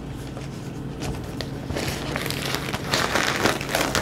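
Handling noise as a MacBook Air is slid out of its cardboard box and turned over: rustling and scraping that grows louder over the last couple of seconds, with a few light knocks.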